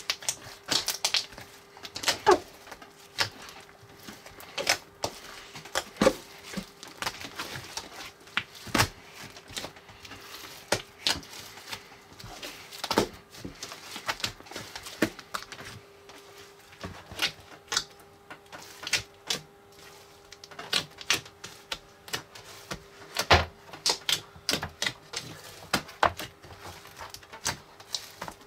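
Foam-ball slime being squished and worked by hand, making irregular crackling clicks and pops.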